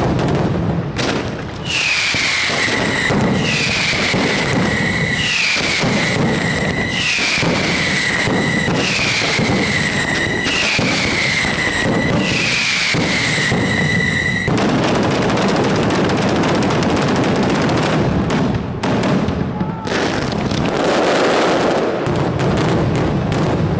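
Mascletà firecrackers going off in a dense, continuous barrage, the bangs merging into one loud unbroken rattle. Through the first half a high falling whistle repeats about every second and a half, then stops.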